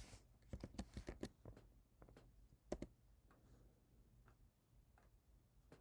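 Faint clicks of a computer keyboard and mouse, a quick run of them in the first second and a half and a few more scattered after.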